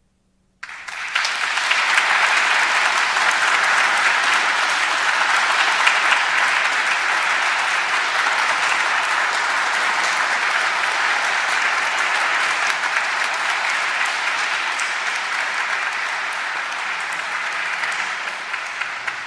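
A congregation applauding: sustained, dense clapping that starts abruptly under a second in, holds steady and tapers slightly near the end.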